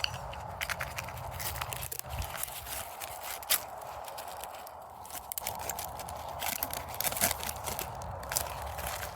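The inner layers of a torn-open AC capacitor being pulled and crumpled apart by hand, giving irregular crinkling, crackling and snapping clicks.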